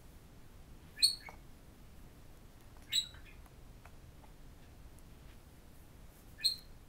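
Budgerigar giving three short, high chirps: about a second in, about three seconds in, and near the end.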